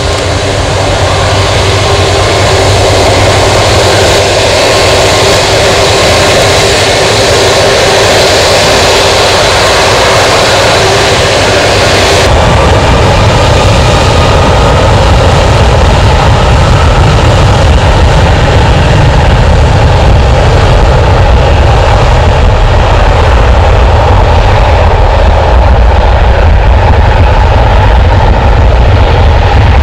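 Twin Rolls-Royce Trent 700 turbofans of an Airbus A330-200 at takeoff power as the airliner rolls down the runway: loud, with a whining note over the engine noise at first. About twelve seconds in, the sound changes abruptly to a deep, heavy rumble as the jet moves away down the runway.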